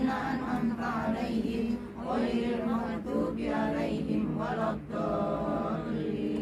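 A group of women chanting together in unison, a melodic group recitation with several voices overlapping without pause.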